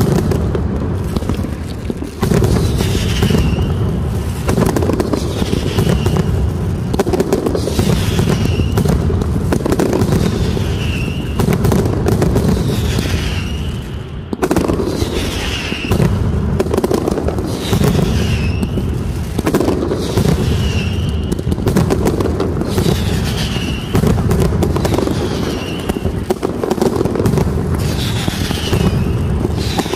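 Mascletà firework barrage: a dense, continuous rumble and crackle of firecrackers and bangs, with whistling rockets shrieking upward every couple of seconds.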